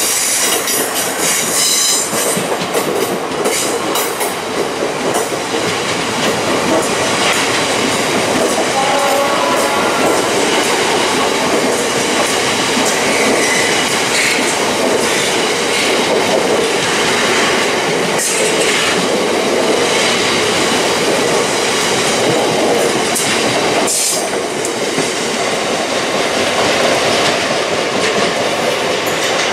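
Long rake of bogie oil tank wagons rolling past at speed, a loud steady rumble of wheels on rail with repeated clicks as the wheels cross rail joints.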